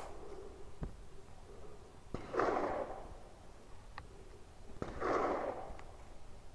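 Slow, regular breathing close to the microphone, one soft breath about every two and a half to three seconds, with a few faint clicks between; no shot is fired.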